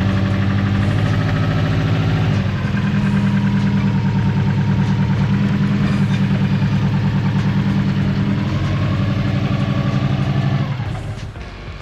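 Car engine idling steadily. It shifts slightly in pitch about two seconds in and cuts off abruptly near the end.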